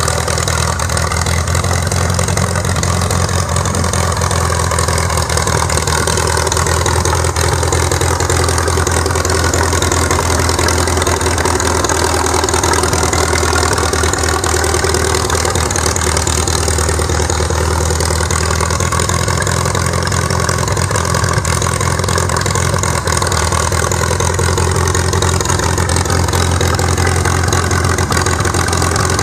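Farmall M tractor's International 4.1L four-cylinder gasoline engine idling steadily at an even speed.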